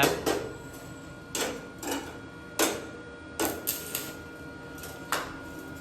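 A series of sharp, irregular knocks and clanks, about eight over five seconds, with short gaps between them and a faint steady hum underneath.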